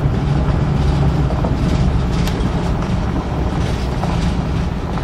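Pickup truck driving on a gravel road, heard from inside the cab: steady engine and tyre rumble with scattered ticks of gravel striking the truck.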